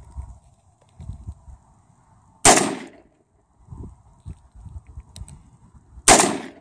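Two single rifle shots from a newly built AR-15-style rifle, about three and a half seconds apart, each with a short echoing tail.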